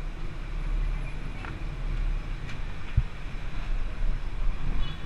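Small scooter engine idling with a low, steady rumble, and a single sharp knock about three seconds in.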